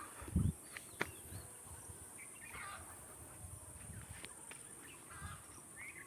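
Birds, likely domestic fowl, giving short scattered calls over a steady high-pitched hiss, with a couple of soft knocks in the first second.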